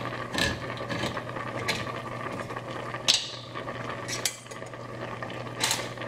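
Handheld manual can opener on a steel can: a few separate metal clicks and knocks as it finishes and comes off the can, the sharpest about three seconds in, over a steady low hum.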